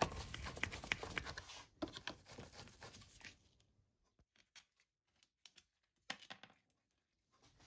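A screwdriver working cross-head screws out of a Honda XL175's magnesium clutch cover. There is a run of small scratchy clicks and scrapes for about three seconds, then only a few scattered clicks.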